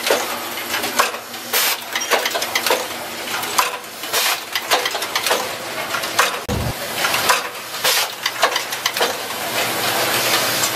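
Automatic switch assembly machine running: a busy, irregular clatter of clicks and clacks from small metal parts and pneumatic actuators over a steady hiss. A dull low thump comes about six and a half seconds in.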